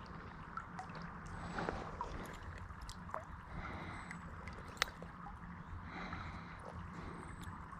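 Creek water running steadily over a low rumble, with scattered small clicks and one sharp click about five seconds in.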